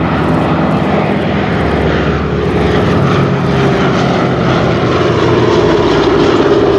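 Radial piston engines of a Boeing B-17 Flying Fortress and a Republic P-47 Thunderbolt droning as the two fly past in formation, with the propeller drone growing slightly louder toward the end.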